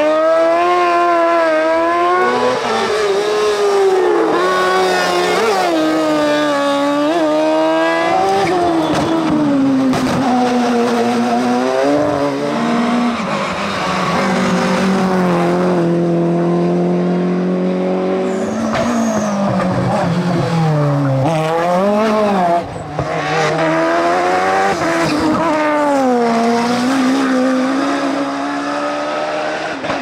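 Racing car engines revving hard as the cars power up the hillclimb. The pitch climbs and drops sharply again and again with each gear change, holds steadier for a few seconds around the middle, and there is some tyre squeal through the bends.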